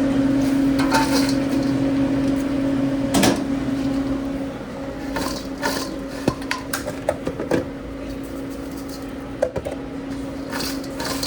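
A steady machine hum, louder for about the first four seconds and softer after, with scattered clicks and knocks of kitchen work. The sharpest knock comes about three seconds in.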